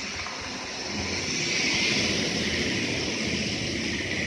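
N gauge model freight train, an EF64 locomotive hauling container wagons, running past close by: a motor whir and wheel rumble on the track that grow louder over the first two seconds and ease off near the end.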